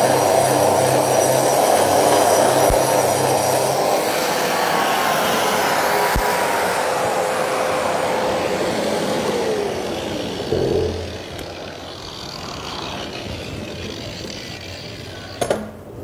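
Hilti DGH 130 concrete grinder running on a concrete wall with a VC20 vacuum cleaner extracting the dust. About ten seconds in, the grinder is switched off and spins down with a falling whine, and a quieter steady noise carries on.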